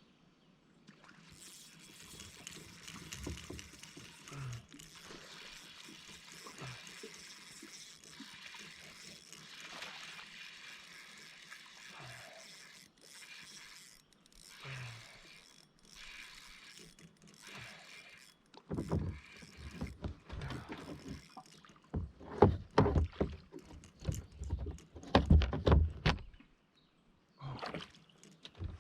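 A steady hiss of water and gear on a kayak, then a run of loud knocks and splashes for several seconds near the end as a small largemouth bass is brought to and landed on the kayak.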